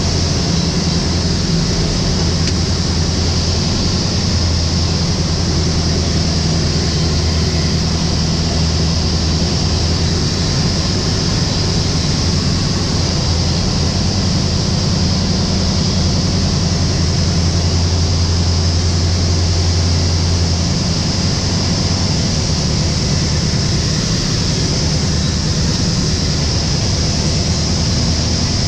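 Van's RV light aircraft's piston engine and propeller droning steadily, heard from inside the cockpit with a steady hiss of wind. The engine note drops lower about twenty seconds in.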